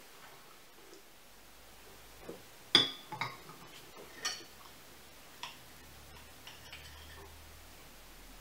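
China teacup set down onto its china saucer: one sharp clink with a short ring about three seconds in, followed by a few lighter clinks and taps of tableware.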